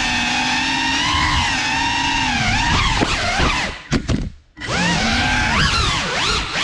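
GEPRC Cinelog 35 cinewhoop drone's motors whining, the pitch holding steady and then swooping up and down with the throttle. About four seconds in the motors cut out for about half a second, a throttle chop, then spool back up.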